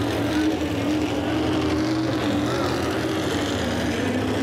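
Square-body Chevrolet pro stock 4x4 pulling truck's engine running at a steady, fairly high speed, its pitch wavering slightly as the truck creeps forward.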